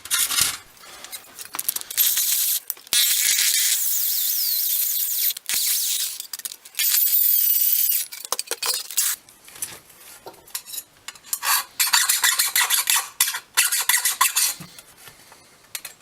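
Drill with a 5/16-inch bit boring a bolt hole through a metal bracket in several long passes, the bit squealing as it cuts. After that, a file rasps back and forth in quick strokes, cleaning up the hole.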